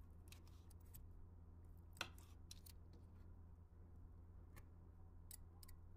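Faint clicks and scrapes of a steel knife and fork cutting roasted chicken thighs on a wooden cutting board, with one sharper tap about two seconds in, over a low steady hum.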